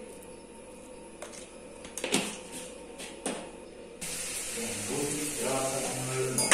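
A few light clicks and taps as salt is sprinkled onto corn cobs in water in an aluminium pressure cooker. About four seconds in, a steady hiss comes up, with a short run of pitched notes of background music.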